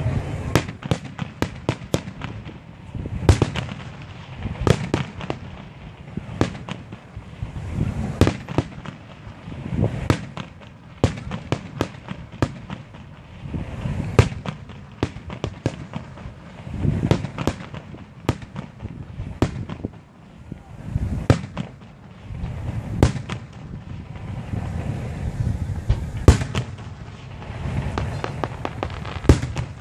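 Aerial fireworks shells bursting one after another throughout: deep booms every couple of seconds, with many sharp cracks and crackles between them.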